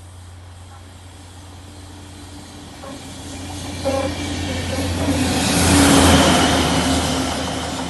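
Windhoff multi-purpose vehicle pair passing on the line: a steady low engine drone builds as it approaches, with a loud hiss at its closest about six seconds in, then easing off.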